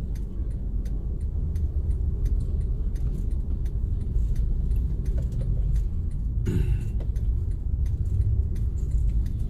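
Steady low rumble of a vehicle's engine and the surrounding road traffic while crawling along in town traffic. Light rattling clicks run through it. A short sound falling in pitch comes about six and a half seconds in.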